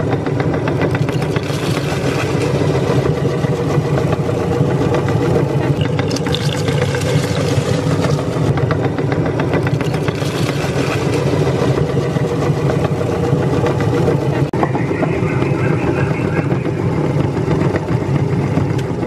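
Electric meat grinder running steadily under load with a motor hum, a fine crackling running through it as crunchy cookies are crushed through the grinding plate.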